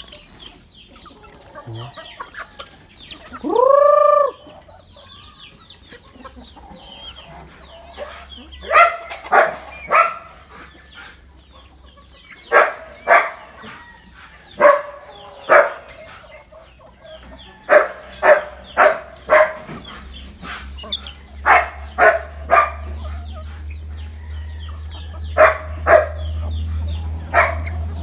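A flock of native chickens clucking and squawking as they feed. About four seconds in comes one loud call that rises and falls, and from about eight seconds on there are many short, loud calls in twos and threes. A low rumble builds over the last several seconds.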